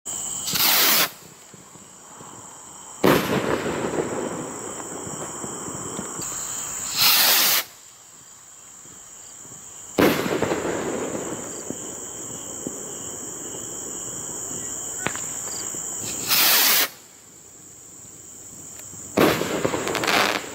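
Three firework rockets going up one after another: each launch is a short hissing whoosh, followed about two and a half seconds later by a single loud bang that echoes away. Crickets chirp steadily underneath.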